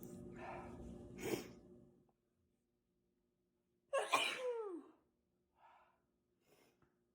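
A woman's single sneeze: a couple of gasping in-breaths in the first two seconds, a short pause, then the sneeze bursts out about four seconds in with a voiced tail that falls in pitch, followed by soft breaths.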